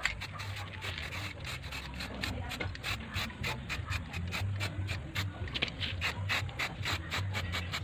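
Aerosol spray paint can spraying paint onto metal parts: a steady hiss with a fast, regular ticking of about five clicks a second.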